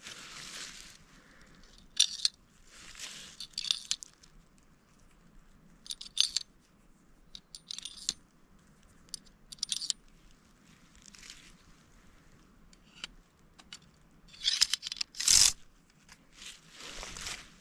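Reloading a Henry H001 lever-action .22's tube magazine: scattered sharp metallic clicks and clinks of the inner magazine tube and of .22 rimfire cartridges being dropped one at a time into the loading port, with rustling of dry leaves and clothing between them. A louder burst of metal clatter comes near the end.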